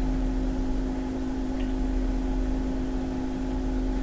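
A steady background hum with a few constant tones over a low drone, with a faint click about a second and a half in.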